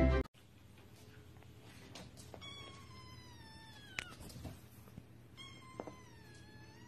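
Music cuts off at the very start, then a kitten meows twice, a second or so apart. Each meow is long and high-pitched and slides slightly down in pitch.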